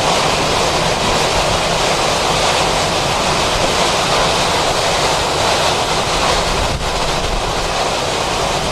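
Hurricane-force wind blowing hard against the microphone: a loud, unbroken rush of noise that holds steady throughout.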